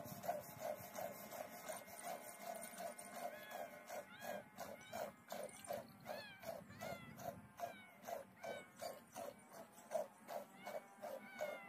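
Kittens mewing, short high calls repeated every half second or so from about three seconds in, over a steady rhythmic pulsing of about three beats a second.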